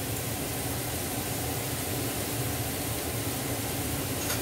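Steady fan-like hum and hiss of a kitchen cooker hood running above a wok, with a faint click about four seconds in.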